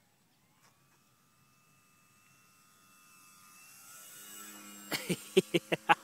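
Motor of a radio-controlled model Piper Cub droning overhead, its pitch rising about a second in and the sound growing louder as the plane comes closer. Near the end a quick run of loud bumps cuts in.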